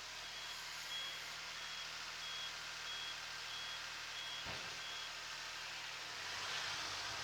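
Reversing buzzer beeping about one and a half to two times a second over a Kubota SL28H tractor's diesel engine running; the beeps stop about five seconds in as the tractor stops backing.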